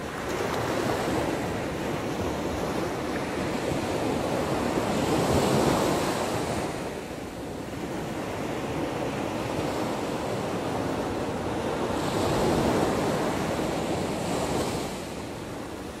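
Ocean surf on a beach: waves breaking and washing in, a steady rush that swells twice, about five seconds in and again about twelve seconds in.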